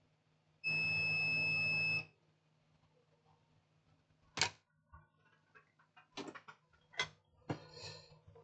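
Multimeter continuity buzzer giving one steady high beep for about a second and a half, meaning the probes are across a short to ground on the board. Then several sharp clicks and taps of the probes on the board.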